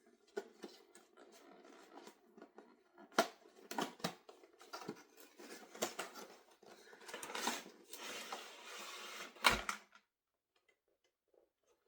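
A doll's cardboard box being handled and opened by hand: a run of irregular clicks, scrapes and rustling, with a longer rasping stretch about eight seconds in. A heavier thump follows, and then the sound cuts off suddenly.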